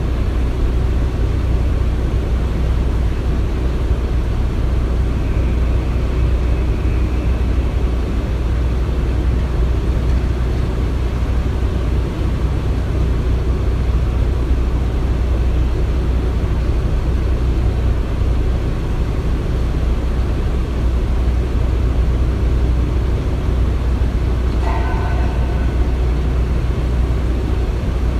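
Construction-site machinery running with a steady, heavy low rumble. A brief high squeal cuts in near the end.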